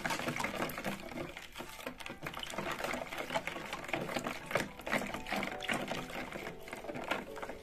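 Wire whisk beating a thin liquid of milk, oil, water and yeast in a bowl: quick sloshing and splashing with a rapid run of clicks from the wires hitting the bowl.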